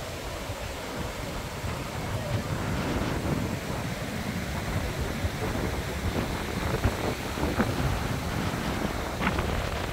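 River water rushing over shallow rocky rapids, with wind buffeting the microphone in uneven gusts.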